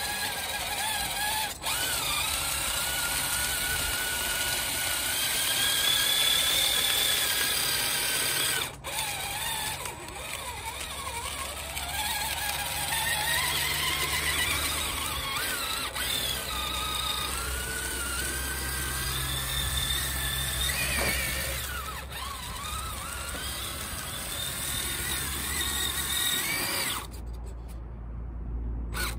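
Electric drive motor and geared drivetrain of a Traxxas TRX-4 Sport RC crawler on tracks whining under throttle, the pitch rising and falling as the speed changes, with a few abrupt breaks.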